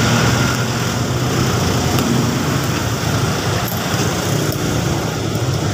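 Steady road traffic noise with motor vehicle engines running, and a couple of faint clicks.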